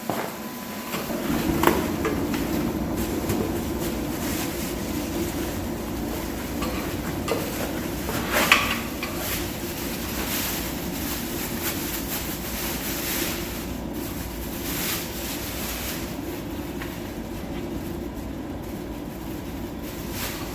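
A steady mechanical rumble starts about a second in and keeps going, with a few short clicks and rustles from chair parts being handled and unpacked.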